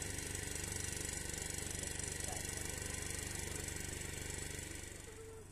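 A steady mechanical hum with a rattle, like a small motor running, fading away near the end.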